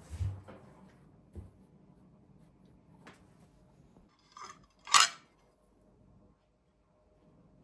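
Dishes and cutlery being handled: a soft thump, a few light knocks and clicks, then one sharp, loud clink about five seconds in.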